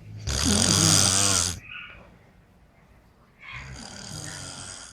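A person snoring: two snores, a loud one lasting about a second and a half near the start, and a quieter one near the end.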